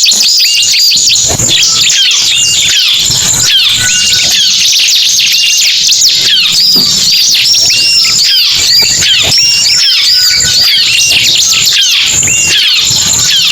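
Loud, dense chorus of ciblek and prenjak songbird calls layered together as a bird-trapping lure. Many short, sharp chirps that glide up and down overlap with no pause.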